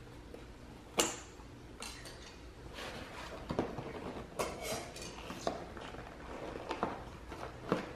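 A sharp click about a second in, then a run of rustling, scraping and small knocks as a cardboard gift box and its wrapping paper are handled and opened.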